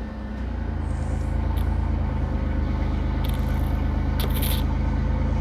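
Minivan engine idling steadily, with brief scraping hisses about three and four and a half seconds in.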